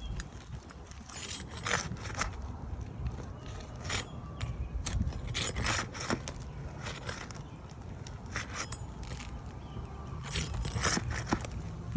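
Flat bar scraping and prying at asphalt roof shingles in irregular strokes, with a few sharp clicks, as old shingles are worked loose.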